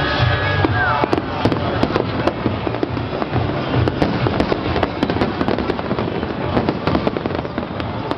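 Fireworks crackling and popping in a dense, rapid barrage of many sharp reports close together. Music plays at the start and gives way to the crackle about a second in.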